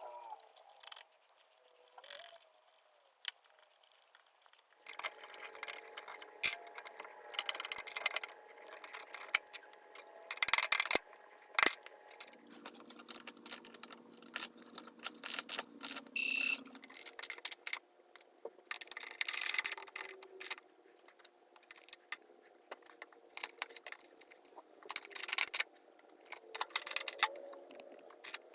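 Irregular metallic clinks, taps and scraping as metal tools and table saw parts are handled and fitted during reassembly.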